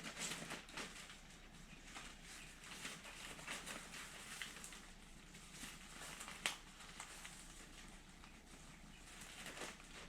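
Faint rustling and light clicks of someone searching for and handling small parts, with one sharper click about six and a half seconds in.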